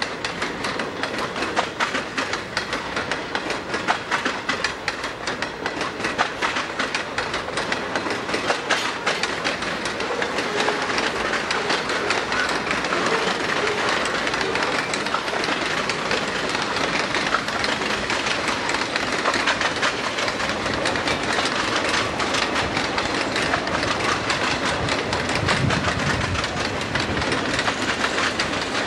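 Freight train cars rolling steadily past: the wheels of container cars, boxcars and covered hoppers clicking rapidly and continuously over the rail joints.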